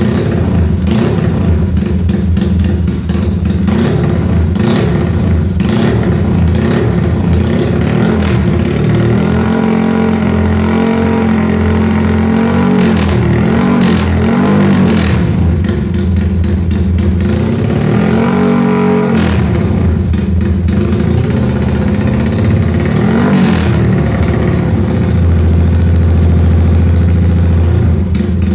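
Yamaha Y15ZR (MX King 150) motorcycle's 150cc single-cylinder four-stroke engine running and being revved repeatedly, its pitch rising and falling with each blip of the throttle.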